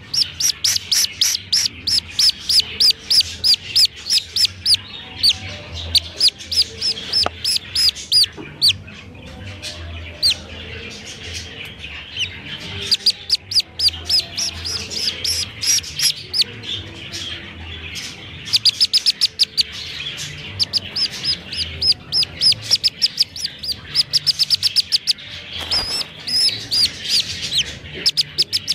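Black-bellied whistling duck duckling giving its distress call: a long run of short, high-pitched peeps, several a second, broken by brief lulls.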